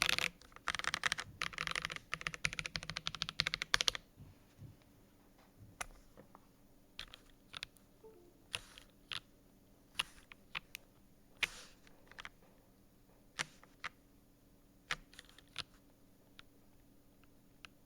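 Akko ACR Top 75 aluminum mechanical keyboard with KTT Strawberry switches lubed with dielectric grease, being typed on: a fast flurry of keystrokes for about the first four seconds, then single keypresses every second or so.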